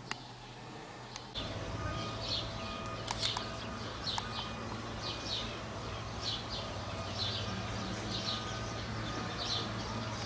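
Small birds chirping repeatedly, short high chirps every half second or so, over a steady low hum that sets in about a second in.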